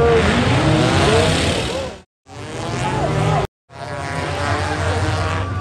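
Race car engines revving and passing at speed, their pitch rising and falling. The sound comes as three short clips cut together, broken by sudden silences about two seconds and three and a half seconds in.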